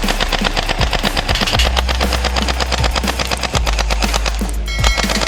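Rapid automatic gunfire from an AK-47 gun sound, about ten shots a second, with a short break near the end.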